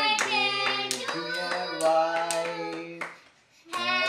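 A family singing a birthday song together, children's voices among them, with steady hand claps keeping time. The singing and clapping break off briefly about three seconds in, then start again.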